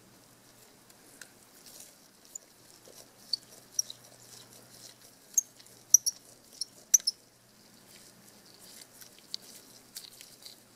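Faint, irregular small clicks and ticks of a precision screwdriver turning out tiny screws from a compact camera's sheet-metal frame, the sharpest few clicks about six to seven seconds in.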